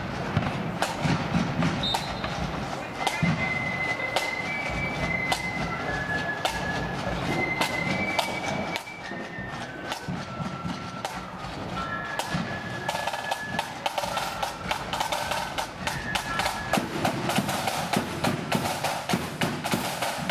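Marching flute band playing a tune: high flute notes over rope-tension side drums and a bass drum. The drumming grows busier and louder in the last few seconds.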